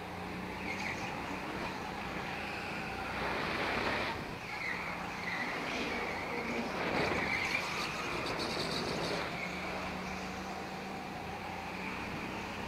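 Go-kart engine running at speed through a lap, its steady drone under rushing noise that swells and eases with the throttle. A brief high squeal comes about eight seconds in.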